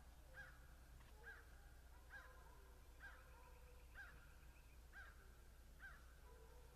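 Faint, distant pack of hunting hounds baying: a regular call about once a second, with fainter, longer voices beneath. The hounds have just picked up a deer's track.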